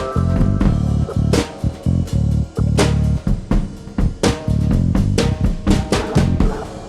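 Music with a fast, busy drum beat over bass and guitar.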